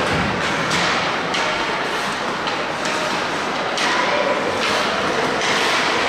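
Ice hockey play: irregular knocks and thuds of sticks, puck and boards over steady background noise, with a short shout about four seconds in.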